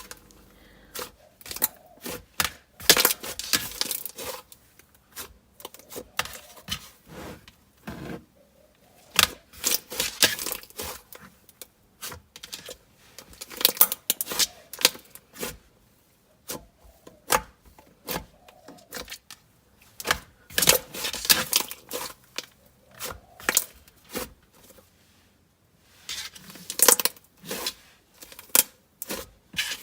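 Dense, creamy pistachio gelato slime being squeezed, stretched and poked by hand. It makes bursts of rapid crackling clicks and pops, with short pauses between handfuls.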